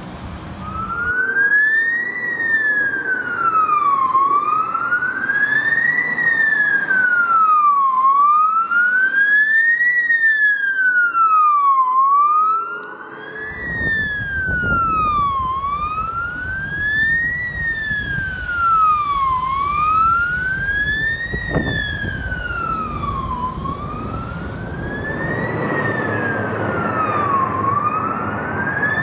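Fire truck siren in a slow wail, rising and falling between two pitches about once every four seconds; it starts about a second in. A low rumble joins about halfway through.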